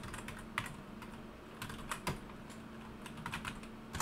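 Computer keyboard keys clicking as a web address is typed, in short irregular runs of keystrokes, with a firmer key press at the very end.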